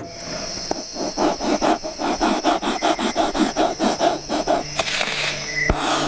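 Quick, even back-and-forth strokes of a hand tool rubbing on wood, about four or five a second, which stop shortly before a single sharp knock near the end.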